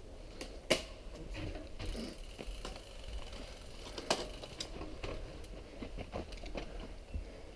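Mountain bike rattling and clattering as it rides over a bumpy dirt trail, with a steady low rumble and many sharp knocks from the bumps, the loudest about a second in and again about four seconds in.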